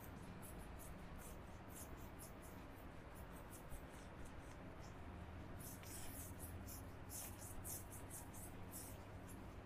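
Handheld duster wiping marker writing off a whiteboard: a quick run of short, faint rubbing strokes, coming thicker in the second half.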